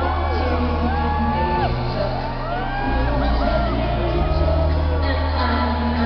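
Live pop concert music with a heavy bass beat, recorded from within the audience, with a voice singing and fans shouting and whooping over it.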